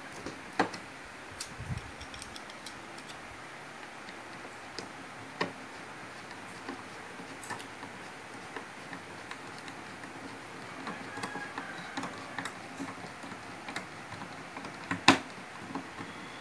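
Hand screwdriver turning a screw into a speaker box's top panel: scattered small clicks and taps, with one sharper knock near the end.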